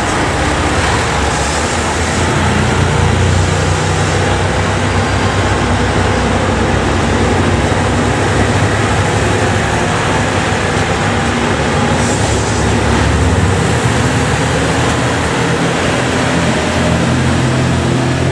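JR Shikoku 2700 series diesel railcar's engines running steadily as the train moves past along the platform.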